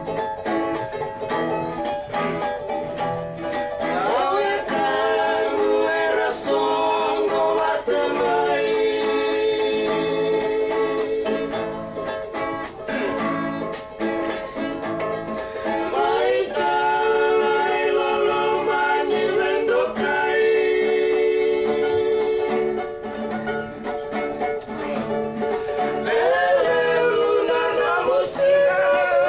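Acoustic guitars strummed and picked while a Fijian man sings a song over them in long, gliding phrases.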